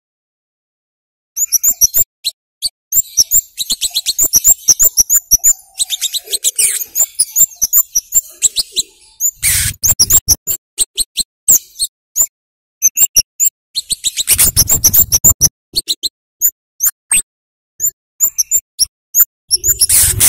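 Scarlet-headed flowerpecker (kemade, cabai jawa) calling excitedly: rapid runs of sharp, very high 'cit' chirps, starting about a second in. Three short, loud bursts of rushing noise break in around the middle, two-thirds through and near the end.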